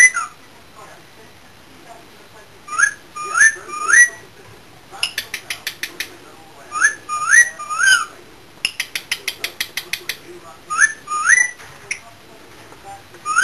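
Cockatiel whistling in short groups of two or three rising notes, broken by two rapid runs of tutting clicks, about nine a second: excited chatter aimed at a budgie.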